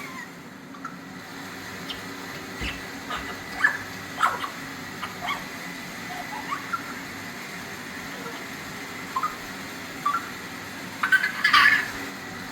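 African grey parrot making scattered short squeaks, chirps and clicks, with a louder cluster of squawks near the end.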